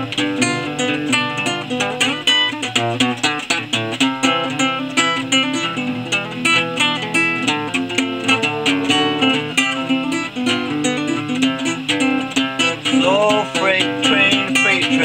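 Solo classical guitar with very old strings, plucked in a steady folk picking pattern: a repeating bass under a melody line, with no singing.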